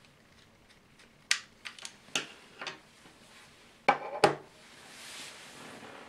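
Small metallic clicks and ticks of a Phillips screwdriver driving screws into a laptop hard drive's sheet-metal caddy. About four seconds in come two louder knocks as the drive is set down on the desk, then a soft rustle.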